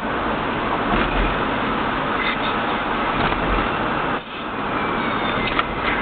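Steady road and engine noise of a car driving at speed, heard from inside the car. The noise briefly drops about four seconds in.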